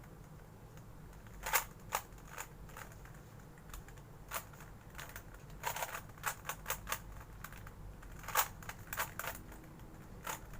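Plastic twisty puzzle (Rubik's cube) being turned by hand: irregular sharp clicks and clacks, some in quick clusters of several turns, with short pauses between.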